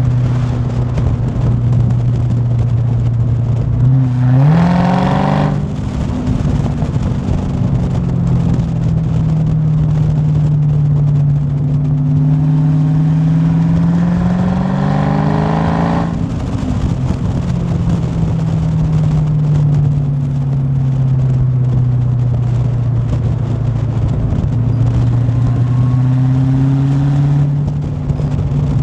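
Supercharged 6.2-litre HEMI V8 of a Dodge Charger Hellcat under way, running steadily at cruise. It gives a short, sharp rise in revs about four seconds in, and a longer climbing pull between about twelve and sixteen seconds before dropping back to cruise.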